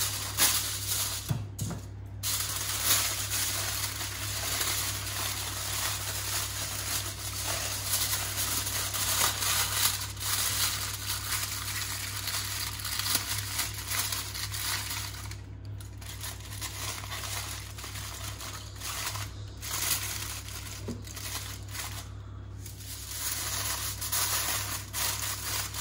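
Aluminium foil crinkling and crackling as it is folded and crimped by hand over a baking tray, with a few brief pauses.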